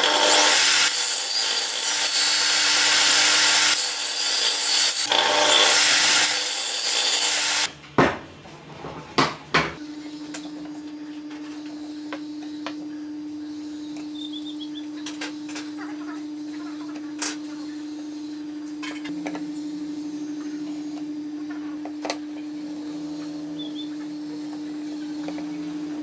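Table saw running and ripping a pallet board, a loud, dense cutting noise over the motor's steady tone that cuts off suddenly about eight seconds in. A few sharp wooden knocks follow, then a steady low hum with light taps and scratches of a pencil and square on the bench.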